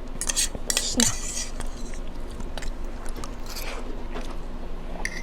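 Biting into and chewing lumpiang shanghai, a fried Filipino spring roll, with crisp crackling bites in the first second and a half, then softer chewing.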